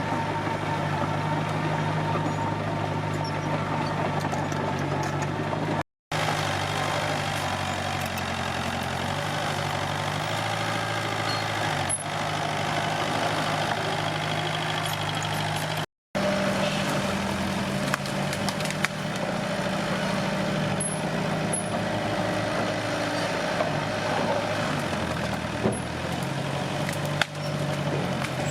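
Komatsu D21P bulldozer's diesel engine running steadily under work, its note stepping slightly where the audio drops out briefly twice, with a few sharp knocks in the second half.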